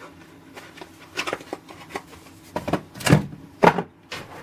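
Hands rummaging in a cardboard box and handling the items in it: a handful of short knocks and rustles, the loudest two about three seconds in.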